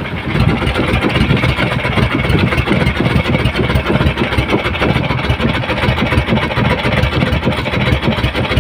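Engine of a wooden outrigger boat (bangka) running steadily and loud.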